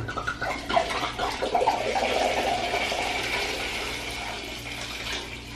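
Red wine pouring from an upturned bottle into a saucepan: a swirled 'tornado' pour running as a steady splashing stream that eases off toward the end as the bottle empties.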